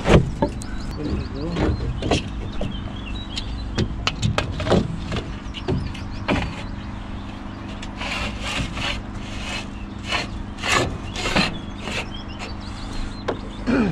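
Timber column formwork being handled and worked into place: irregular wooden knocks, with scraping and rubbing of boards and a few short squeaks. A steady low hum runs underneath.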